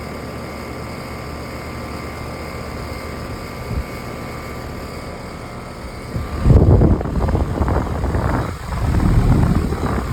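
Outdoor air-conditioner condenser unit: a steady hum with a faint whine, then about six and a half seconds in it kicks on, and a loud, uneven rumble of its fan's hot exhaust air buffeting the microphone takes over.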